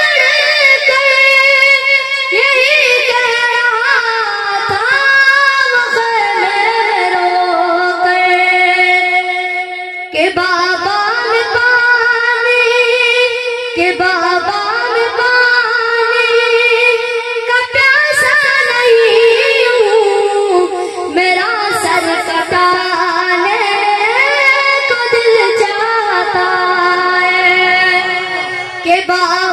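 A boy's voice singing an Urdu naat into a microphone with no instruments, in long drawn-out phrases with wavering, gliding notes, pausing briefly for breath about ten seconds in and again near the end.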